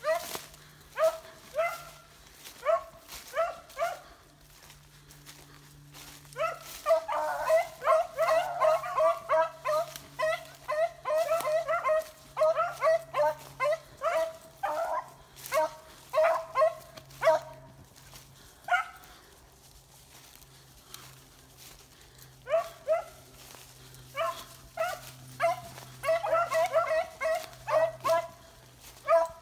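Dogs barking in quick, high-pitched runs, the barks crowding and overlapping for several seconds. The barking stops for about four seconds past the middle, then starts again.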